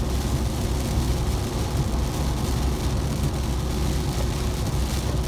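Steady road and engine rumble inside a moving car, with an even hiss of rain and wet tyres on the road.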